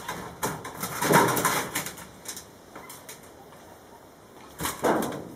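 Corrugated metal roofing sheets rattling and scraping as they are handled on a wooden roof frame, in several short noisy bursts; the loudest lasts about a second, starting about a second in, and another comes near the end.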